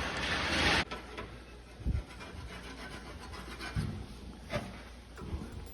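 A steady rubbing, scraping noise that cuts off suddenly about a second in, followed by a few soft, dull knocks as engine parts are handled.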